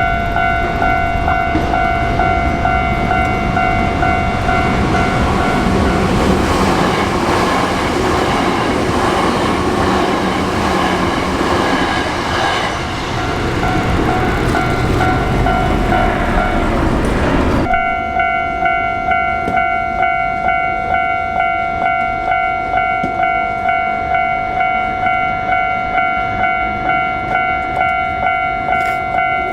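Japanese level-crossing warning bell ringing steadily while a Hankyu Kyoto Line electric train runs over the crossing. The train noise stops suddenly a little past halfway, leaving the bell ringing alone at about two strokes a second.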